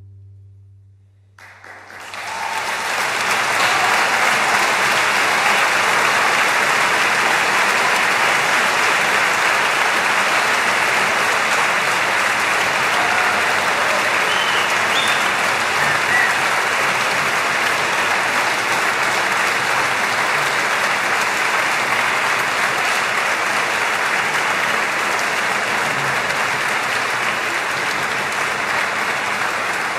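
Concert hall audience applauding. The applause breaks out about a second and a half in, after a brief hush as the last chord dies away, and goes on steadily.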